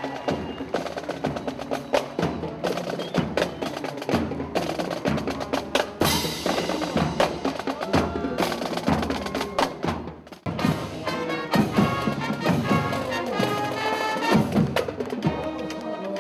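Marching band playing, with drum strokes and snare rolls under pitched brass and bell-like notes; the music drops off briefly about two thirds of the way through, then comes back in.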